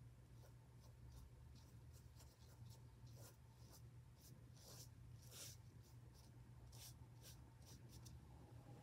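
Faint scratching and dabbing of a Chinese ink brush on paper: a string of short strokes, one longer about five and a half seconds in, over a low steady hum.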